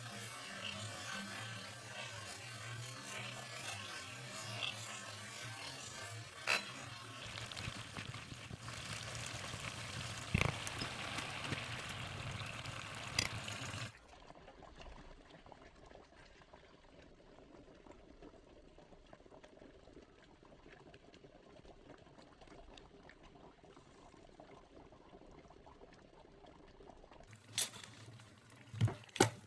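Food cooking in a kitchen: a steady hiss of liquid cooking over a low hum, with a few clicks and knocks. About halfway through the sound cuts abruptly to a much quieter faint hiss, and a few sharp clicks come near the end.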